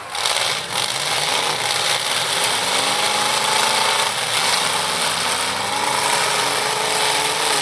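Demolition derby cars' engines running and revving, their pitch rising and falling, over a dense steady noise.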